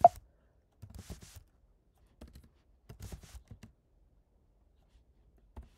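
Computer keyboard keys being typed in four short bursts of clicks with silent pauses between them. A short, sharp, louder sound comes at the very start.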